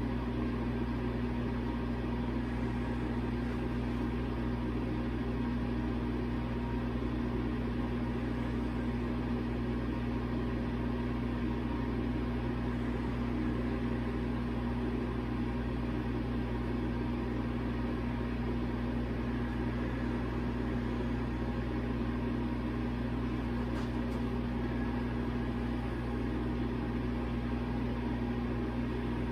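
Steady machine hum with a constant low tone, unchanging throughout.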